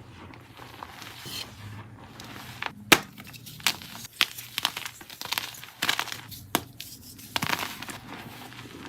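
Blocks of gym chalk being crushed and crumbled: an irregular crunching with several sharp cracks, the loudest about three seconds in.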